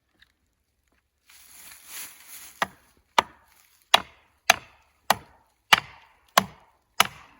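Felling wedge being pounded into the cut of a leaning tree to drive it over: a steady series of eight sharp strikes, a little under two a second. A short scraping rustle comes before them.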